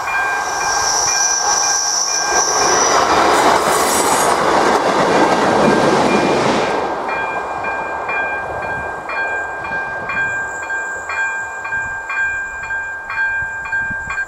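AŽD 97 level-crossing warning signal's second-generation electronic bell striking about once a second. Over it, a train runs on the track, loudest about four to six seconds in, then fading. The bell cuts off at the very end.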